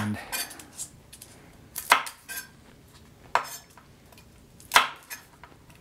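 Santoku knife cutting the ends off garlic cloves and striking a wooden cutting board: three sharp knocks about a second and a half apart, with a few light taps before them.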